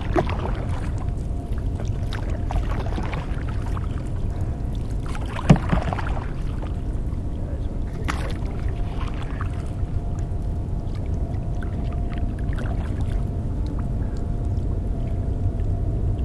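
Canoe being paddled: a paddle swishes through the water every two or three seconds over a steady low rumble, with one sharp knock about five and a half seconds in.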